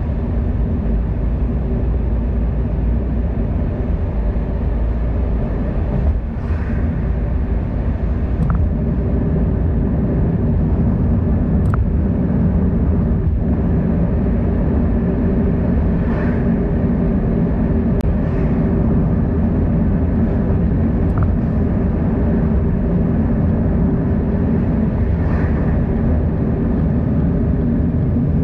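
Steady low rumble of wind and road noise from riding a bicycle along a road, with a few faint clicks scattered through it.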